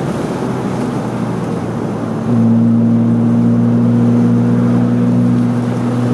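BMW M3 engine heard from inside the car over road and wind noise, running at steady revs. A little over two seconds in it gets suddenly louder and holds one steady droning note.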